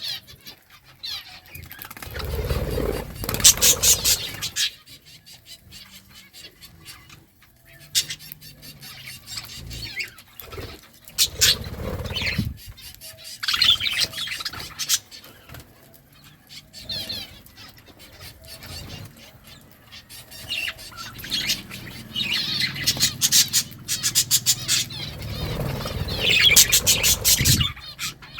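Budgerigars chirping and chattering in irregular bouts. Louder bursts of noise come every several seconds.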